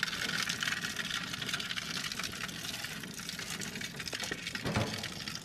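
Fish fillet sizzling in an aluminium-foil tray on a gas grill: a dense, steady crackle of spitting oil that eases off near the end. A brief low thud comes shortly before the end.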